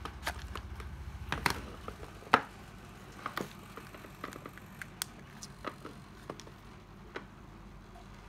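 Irregular light clicks and knocks of a cordless screwdriver being handled, with one sharper knock about two seconds in.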